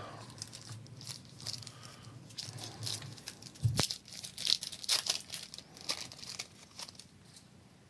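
A foil trading-card pack wrapper being torn open and crinkled in the hands, in short scattered rustles, with a single light knock about four seconds in.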